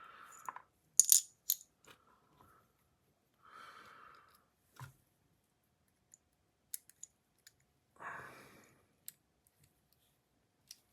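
Stainless steel fidget toy clicking through its spring-and-ball detent, now fitted with a larger-than-stock ball: two sharp metallic clicks about a second in, then scattered faint ticks.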